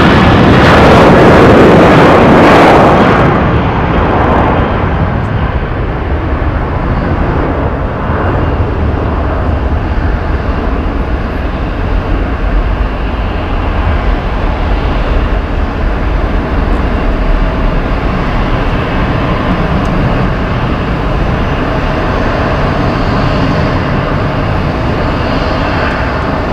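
Airbus A380's four Engine Alliance GP7200 turbofans at taxi power: a steady jet rumble. It is louder and brighter in the first three seconds, then settles lower.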